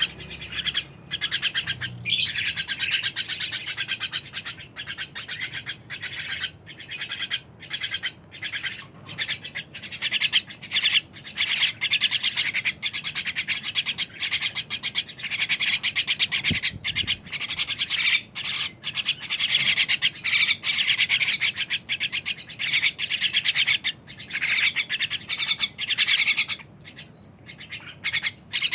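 A songbird, the kacer air, singing a long, fast run of chirps and twittering notes, broken by a few short pauses.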